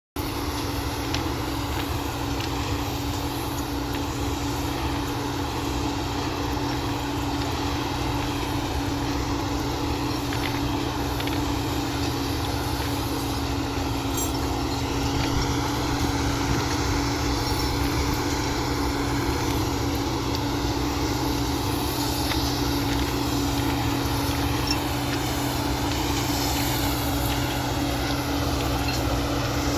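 Ballast regulating machine's diesel engine running steadily, a constant hum with no change in speed.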